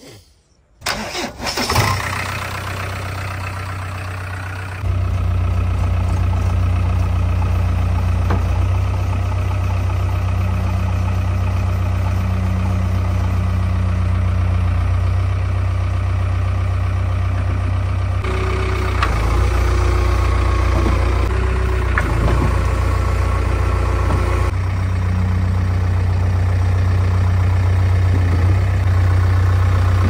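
JCB 3DX backhoe loader's diesel engine cranking and catching about a second in, then running steadily with a deep drone. It grows louder near five seconds and changes note in the middle as the machine works.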